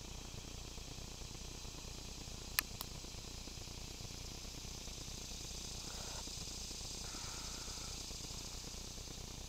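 Steady high hiss, with two sharp clicks in quick succession about two and a half seconds in.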